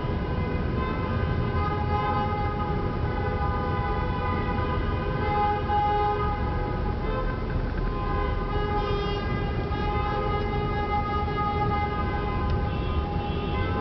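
Several car horns sounding together, held almost without a break, over the low rumble of traffic inside a road tunnel.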